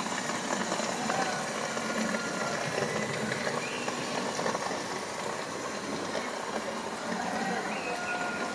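Steady hall ambience: the indistinct murmur of many people talking at once, with no single voice standing out.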